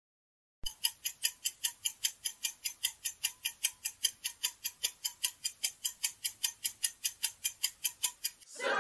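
Countdown-timer clock ticking sound effect: even, sharp ticks about four a second, starting just under a second in and stopping shortly before the end.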